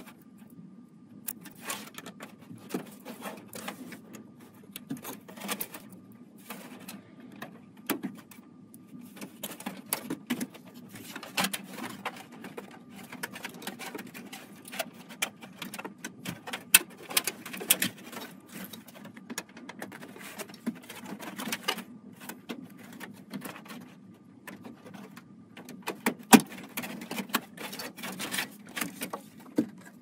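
Power-supply cables and their plastic connectors being handled and routed inside a PC case: irregular clicks, taps and rustles, with a couple of sharper knocks, over a low steady hum.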